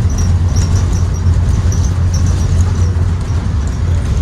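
Interior of a 2023 Blue Bird Vision school bus under way, its Ford 7.3L V8 engine giving a steady low drone. Short high squeaks come several times a second throughout.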